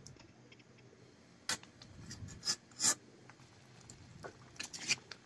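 Metal spatula scraping against the bottom and sides of a metal cooking pan while stirring a thick vegetable curry. A few short scrapes, with a quick cluster near the end.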